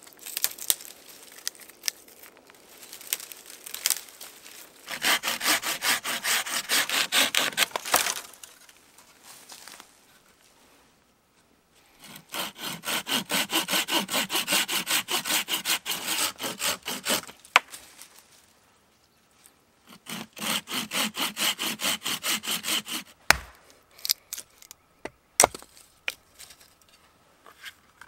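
Hand saw cutting a dry dead branch in three bouts of quick, even back-and-forth strokes. Dry twigs snap before the sawing, and a few sharp cracks and knocks come near the end.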